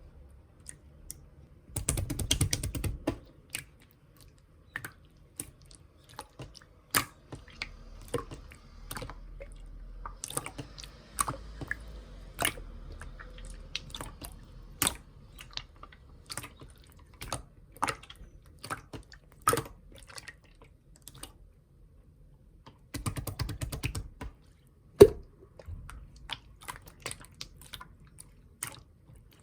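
Slime being squeezed and pressed by hand: irregular sharp clicks and pops of trapped air. Two dense crackling, squishing stretches come about two seconds in and about three-quarters through, with the loudest single pop just after the second.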